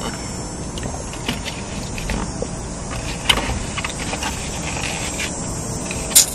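Light clicks and rustles of objects being handled, with a sharp click about three seconds in and a louder one near the end, over a steady hum.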